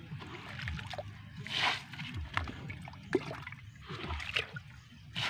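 A plastic cup scooping muddy water and wet mud out of a hole in soft ground: a series of irregular wet scoops and splashes.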